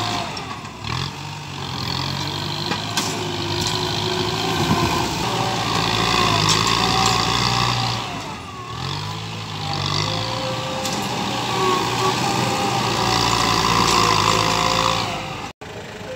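Farm tractor's engine running under load as it works a rear blade through soil, with the engine speed rising sharply twice, about a second in and again about halfway through.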